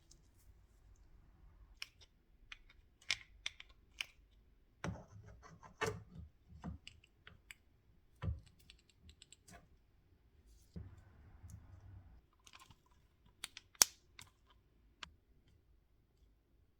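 Irregular clicks and light knocks of small hard parts being handled, with a few brief scrapes; the sharpest click comes a little before the end.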